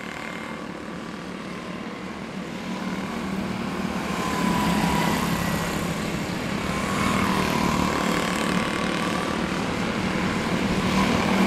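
Quarter midget race cars' small single-cylinder engines buzzing as the pack laps the track, growing louder about four seconds in and again near the end as the cars come past.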